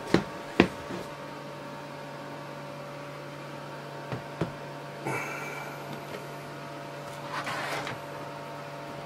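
Handling noise of a plastic tub and a hand-held camera: two sharp knocks in the first second, two lighter clicks about four seconds in, then a brief scrape and a soft rustle. A steady electrical hum runs underneath.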